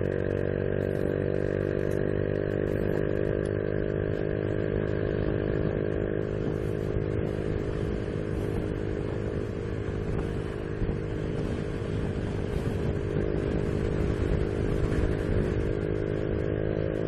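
Honda Biz 125's single-cylinder four-stroke engine running at a steady cruise, its note holding one even pitch.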